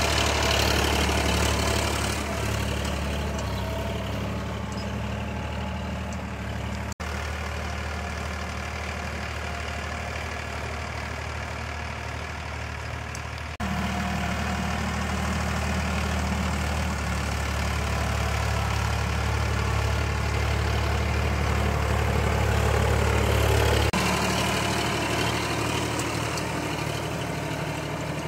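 Sonalika DI 60 RX tractor's diesel engine running steadily while it pulls a cultivator through field stubble. Its loudness changes abruptly a few times, with a brief dropout about seven seconds in.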